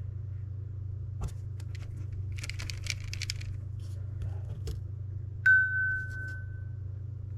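Small handling clicks and a brief rattle over a steady low hum, as paint markers and model pieces are handled on a work table. About five and a half seconds in comes a single clear ringing ping that fades away over a second or so.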